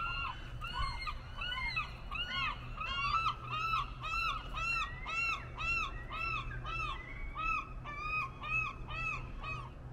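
A flock of geese honking, many overlapping calls a few each second, over a steady low hum.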